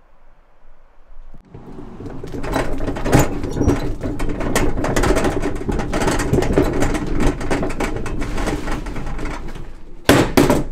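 Demolition noise: a dense run of knocks, cracks and clatter of wood and debris starting about a second and a half in, with a sharp louder burst of strikes near the end.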